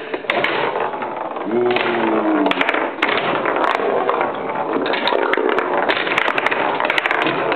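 Table football in play: irregular sharp clacks and knocks of the ball being struck by the players on the rods and hitting the table, over a continuous noisy background. A brief voice rises and falls about two seconds in.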